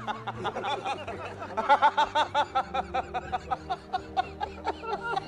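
Men laughing hard together in quick, repeated ha-ha bursts, loudest about two seconds in.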